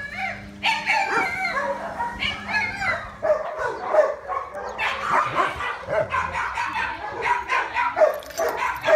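Several dogs barking and yipping, their calls overlapping continuously.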